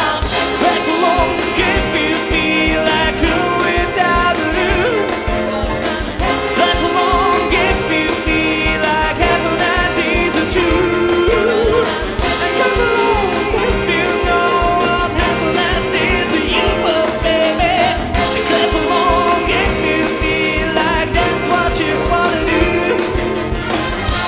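Live big band playing with saxophones and a steady drum beat, a male singer singing over it.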